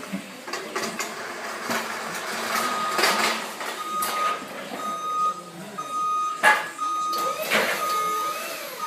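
Electronic warning beeper on warehouse machinery sounding a steady high beep about once a second, over clattering and knocking, with one sharp bang a little past the middle.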